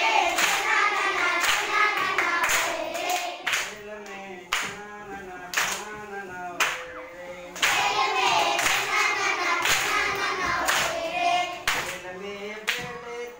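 A group of schoolchildren singing a rhyme together in unison, clapping in time about once a second.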